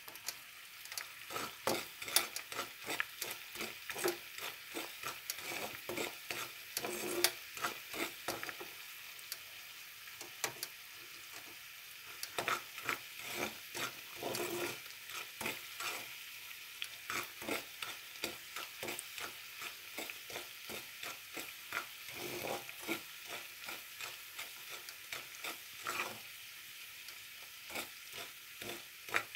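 A metal spoon stirring and scraping bubbling sugar in a black frying pan: frequent irregular clicks and scrapes of the spoon on the pan over a steady sizzle. The sugar is boiling down for caramel but has not yet browned.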